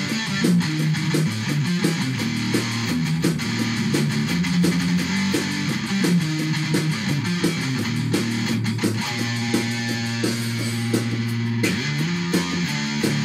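Electric guitar played with fast, even picking, a low riff moving in steps between notes, with a low note held under the picking for a couple of seconds after the middle.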